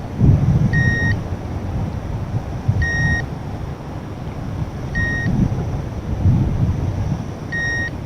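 Electronic carp bite alarm giving single short high beeps, four of them, about two seconds apart. Wind buffets the microphone underneath.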